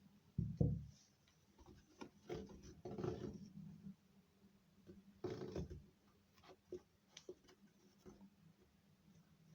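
Cardboard toy box being handled and worked on by hand: a soft thump about half a second in, then short scraping, rustling passes and a few small clicks.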